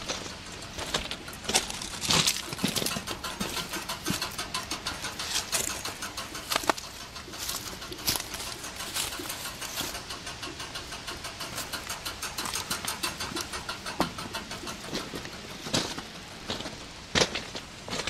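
Electromechanical signal relays clicking in a rapid, even rhythm inside a trackside railroad relay case, with a few louder sharp clicks among them.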